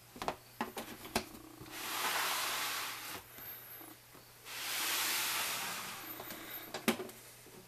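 Plastic snake tubs sliding on the melamine shelves of a ball python rack: one slides in, then another slides out, each a hissing scrape of about a second. Light clicks and knocks of lids and handles come between and around the slides.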